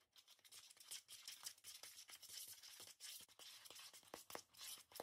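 Faint, irregular squishing and scraping of hands kneading sticky cheese dough with almond flour in a plastic mixing bowl.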